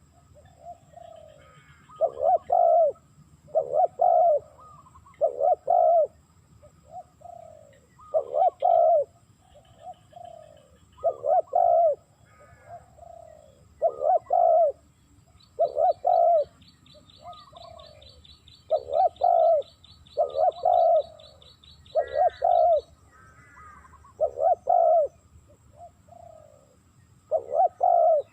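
Spotted dove cooing over and over, the repeated coo phrases of the species' advertising call, each phrase following the last about every second and a half to two seconds, the kind of call used to lure wild doves to a decoy.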